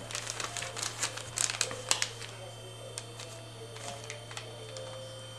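Sheet of paper being folded and creased by hand: crisp rustles and small taps, busiest in the first two seconds and sparser after, over a steady low hum.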